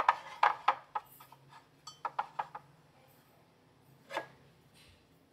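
Ceramic egg tray set down on a wooden shelf: a quick cluster of light clinks and knocks, a few more about two seconds in, and one more clink a little after four seconds as a ceramic mug is picked up off the shelf.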